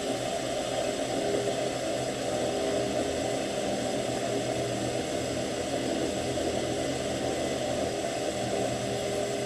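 South Bend drill press running steadily, drilling a deep 1/8-inch hole in aluminum with a long bit.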